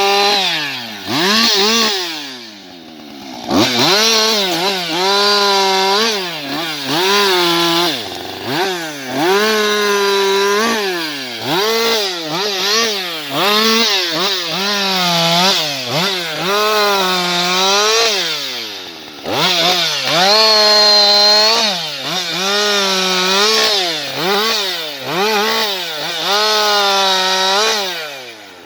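Husqvarna 560XP two-stroke chainsaw at high revs, its pitch dropping and recovering over and over, roughly once every second or so, as the throttle is eased and reopened through a run of short cuts in wood.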